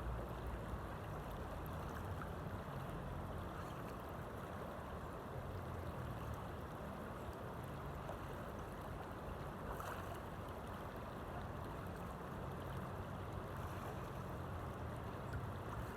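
Steady rush of flowing stream water, with a low rumble underneath.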